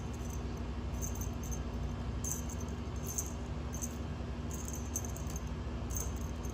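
A small bell jingling in short, irregular bursts, about a dozen times, as a cat plays, over a steady low hum.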